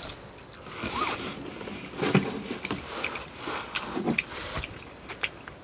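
Close-up eating sounds: chewing, with a few light clicks of chopsticks and a small glass being handled.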